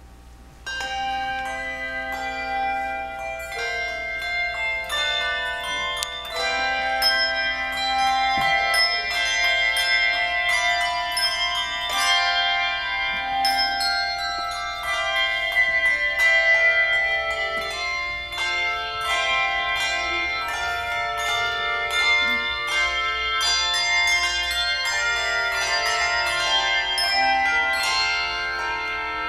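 Handbell choir playing a piece: many handbells struck in turn, their tones ringing on and overlapping into chords, beginning less than a second in.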